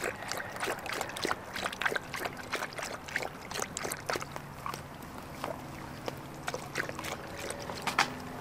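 A dog lapping water, a quick, irregular run of short wet laps and splashes.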